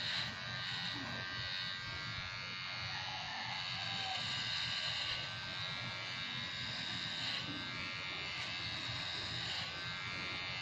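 Electric hair clippers buzzing steadily as they are run through the hair at the side of the head, the buzz brightening and dulling a little as the blade meets the hair.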